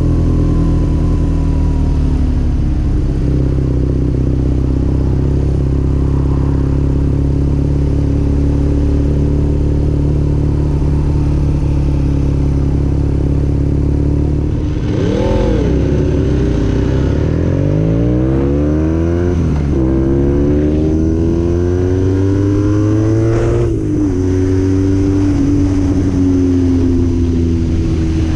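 BMW R nineT's boxer twin with an Akrapovič full exhaust running at a steady cruise. About halfway the revs jump and the bike accelerates, the engine pitch rising in two long sweeps, each cut off by an upshift. Near the end it settles back to a steady cruise.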